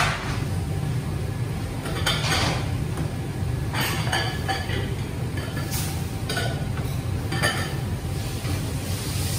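Ceramic bowls and dishes clinking now and then as they are handled and unpacked, with plastic bags rustling, over a steady low hum.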